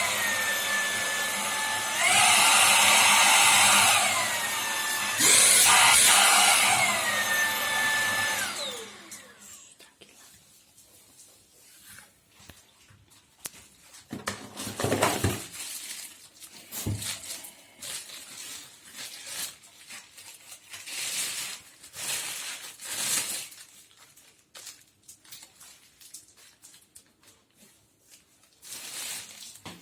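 Vacuum cleaner motor running loud, stepping up and down between power levels, then switched off about eight or nine seconds in and winding down with a falling whine. Afterwards only scattered light clicks and rustles of parts being handled.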